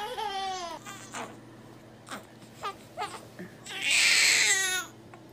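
A baby's short squeal falling in pitch at the start, then a newborn baby crying: one loud wail about a second long near the end.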